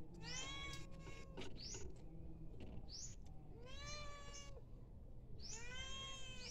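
Domestic cat meowing repeatedly, about five drawn-out meows with short gaps between them, begging for food while a person eats.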